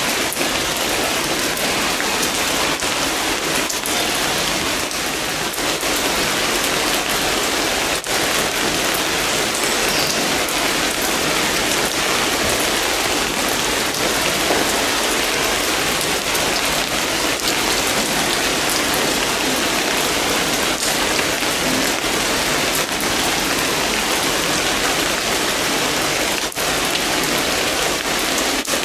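Steady rain falling: an even hiss with a few sharp ticks of single drops scattered through it.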